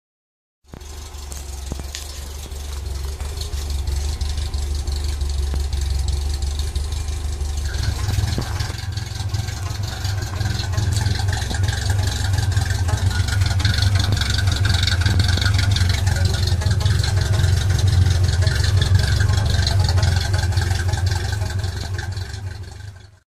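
Carburetted Saab 900's four-cylinder engine running steadily through a homemade twin-pipe 'shotgun' exhaust with the last muffler removed, giving a deep, open exhaust note. About eight seconds in it steps up louder and heavier.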